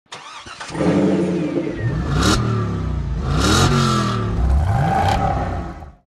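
Car engine revving up about three times, each rev rising in pitch with a whoosh, then fading out near the end: a logo intro sound effect.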